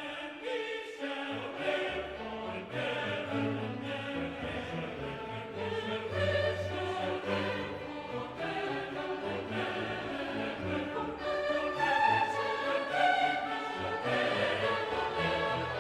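Background music: choral and orchestral classical music with voices and strings.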